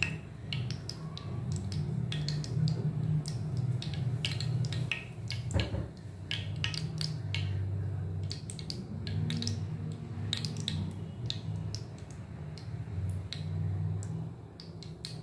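Cooking oil heating in a nonstick frying pan, crackling with scattered sharp pops, over a steady low hum. There is one louder knock about five and a half seconds in.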